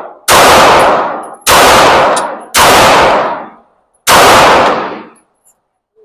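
Four pistol shots about a second apart, the last after a slightly longer pause, each followed by a ringing echo that fades over most of a second in an indoor shooting range.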